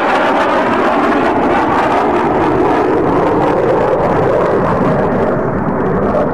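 Dassault Rafale fighter jet's twin turbofan engines roaring steadily as it flies past low. The sharper, higher part of the noise falls away about five seconds in as the jet draws off.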